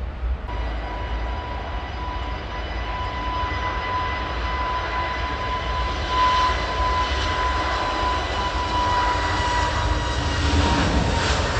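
Jet engines of a taxiing Airbus A320-family airliner: a steady high whine with a low rumble underneath, getting a little louder about six seconds in.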